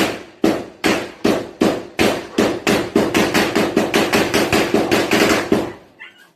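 Gunfire: a long string of single shots, about three a second at first and quickening to about four a second, each trailing a short echo, stopping shortly before the end.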